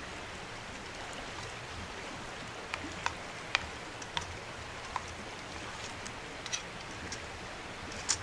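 Campfire coals crackling: irregular sharp pops and snaps over a steady hiss, with a pot of food cooking on the grate above.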